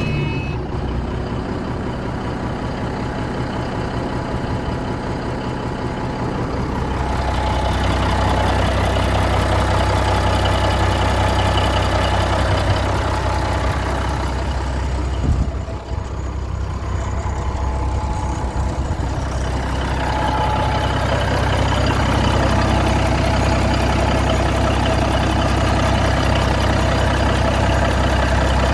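Freightliner FLD 120 heavy diesel truck engine running with a steady low drone. It picks up and runs louder about seven seconds in, eases briefly partway through, then settles at a higher, louder speed for the rest.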